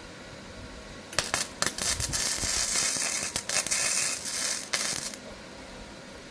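Electric welding arc crackling and hissing in one run of about four seconds, starting about a second in and cutting off suddenly as a bead is laid on the mower's broken handle.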